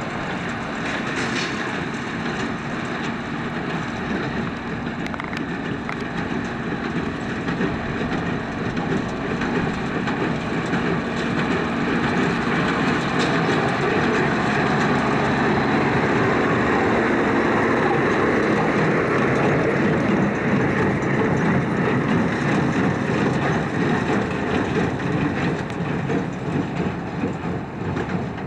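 Farm tractor running in a hay field, a steady engine drone mixed with machinery noise. It grows louder over the first half of the clip, then eases off a little toward the end.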